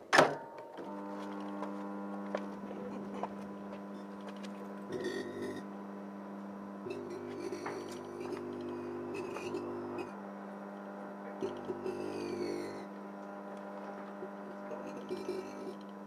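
A Hinari microwave oven switched on with a sharp click, then running with a steady electrical hum. A coarser buzz joins the hum three times for a second or three, while a lit match inside burns into a glowing plasma ball.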